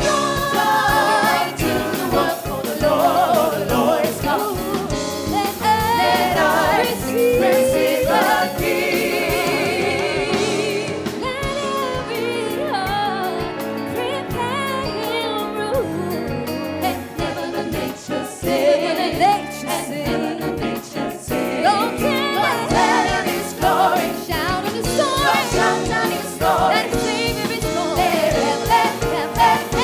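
Live Christian worship song: a woman sings lead into a microphone over a band with electric bass and keyboards, with a choir of backing singers.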